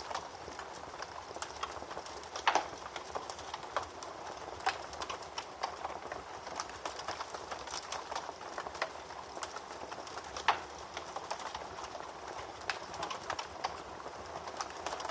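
Wood fire in a fireplace crackling over a steady hiss, with irregular small pops and two louder pops, one a few seconds in and one about two-thirds of the way through.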